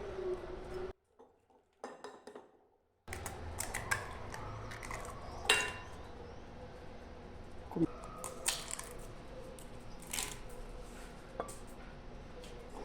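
Eggs being cracked one at a time against the rim of a bowl: a few sharp taps and clinks, one with a brief ring. The sound drops out almost completely about a second in, for about two seconds.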